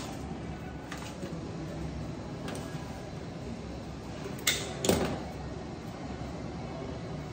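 Flower stems and bare twigs being handled at a stone counter: a few faint clicks, then two sharp clicks close together about four and a half seconds in, over a steady low background rumble.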